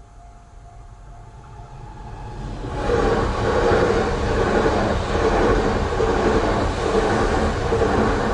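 A Yamagata Shinkansen E3 series Tsubasa train passing over a level crossing. It comes in fast and is loud from about three seconds in, with a rhythmic pulsing of the wheels. A level-crossing warning bell rings faintly before the train arrives.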